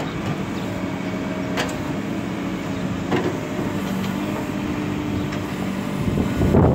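JCB 3CX backhoe loader's diesel engine running as the backhoe arm and bucket work the soil, its note shifting with hydraulic load. There are a couple of sharp knocks, and it gets louder near the end.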